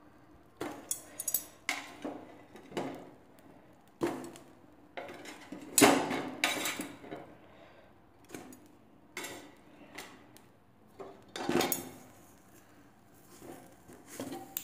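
Steel kitchen tongs clinking and scraping against a metal pressure cooker as sweet potatoes are set one by one onto a bed of hot salt: irregular knocks and clatters, loudest about six seconds in and again near twelve seconds.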